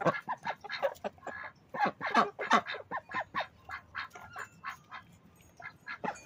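A flock of ducks and chickens calling together: a rapid run of short quacks and clucks, several a second, from birds crowding in to be fed.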